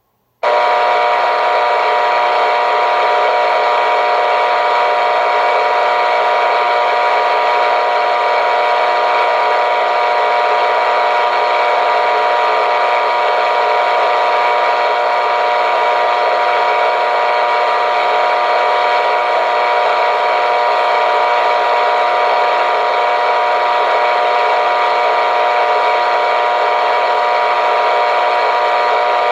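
Clock radio alarm going off to radio static: a loud, steady hiss of static with a few steady tones running through it, cutting in suddenly just under half a second in.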